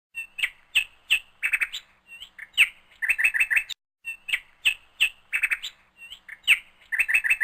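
Common nightingale singing: a phrase of sharp, down-slurred whistles and a quick run of repeated notes, heard twice in a row as the same phrase repeated.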